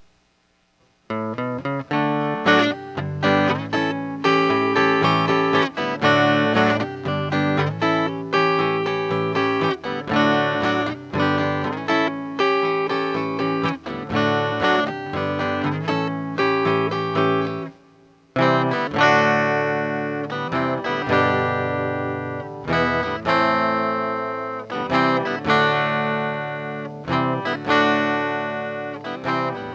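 Chinese replica Gibson J160E acoustic-electric guitar with flatwound strings, playing rhythmic chords through its pickup and a Vox Tonelab ST on the clean setting, treble turned down a little for a less jangly tone. The playing starts about a second in and breaks off briefly a little past halfway before carrying on.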